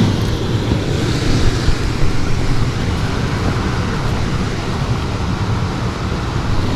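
Indoor air handler's blower running, a steady whoosh of moving air with a low rumble, while the system is calling for heat.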